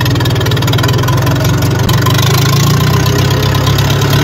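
Old diesel farm tractor engine running without a silencer while driving along: a loud, steady, rapid exhaust chatter of even firing pulses.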